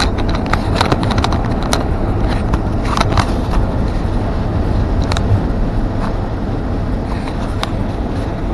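A 1952 Ford F1 pickup driving along towing a loaded trailer, heard from inside the cab: steady low engine and road rumble, with scattered clicks and knocks.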